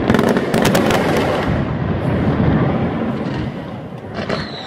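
Daytime aerial fireworks barrage: a dense, continuous crackle of many small reports, with a cluster of sharper bangs in the first second. Near the end a whistle starts and falls in pitch.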